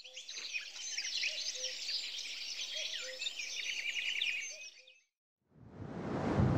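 Birdsong from several birds, with many quick chirps and trills, fading out about five seconds in. After a short gap, a louder rushing of wind on the microphone with coastal surf comes in.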